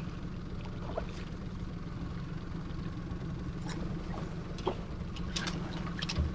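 Small outboard motor running steadily at trolling speed, a low even hum. A few short splashes and clicks come over it as a landlocked salmon thrashes at the surface behind the boat and is netted.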